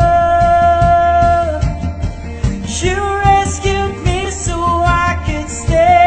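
A young man singing a ballad over a backing track with a steady beat. He holds one long note for about the first one and a half seconds, then sings on from about three seconds in.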